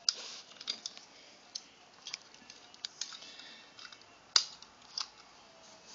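Plastic toy cap gun being handled: scattered light clicks and rustles, with one sharper click about four and a half seconds in.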